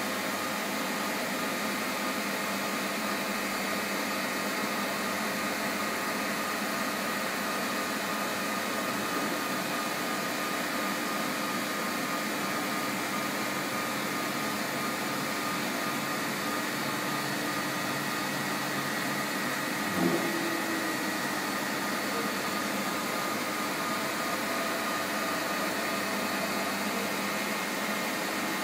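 MAHO MH 700 C CNC milling machine running under power, a steady hum with a high whine, its table slowly traversing. A single knock about twenty seconds in.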